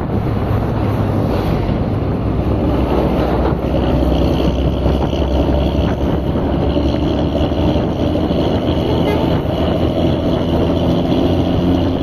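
A vehicle engine running steadily, mixed with wind noise.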